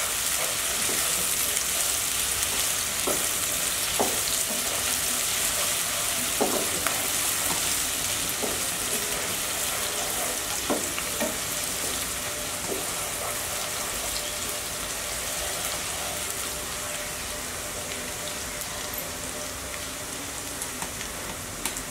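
Chopped onions and whole spices sizzling in hot oil in a frying pan, being fried towards brown. A wooden spatula stirs them with short scrapes and knocks against the pan during the first half. After that the steady sizzle carries on alone, slowly getting quieter.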